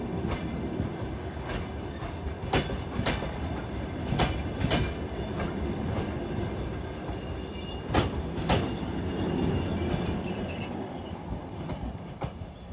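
DR1A diesel multiple unit's coaches rolling past close by, wheels clacking over rail joints in pairs about half a second apart over a steady rumble.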